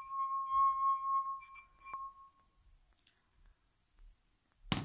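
A glass of water tapped with a finger, ringing with one clear tone that dies away over about two and a half seconds, with a second tap about two seconds in.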